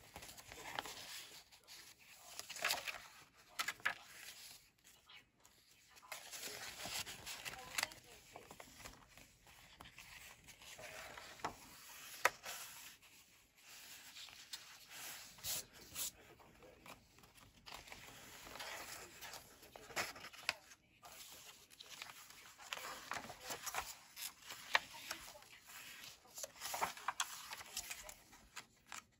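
Paper pages and card inserts of a handmade junk journal being turned and handled: irregular paper rustling and swishing with the odd sharp tap of card.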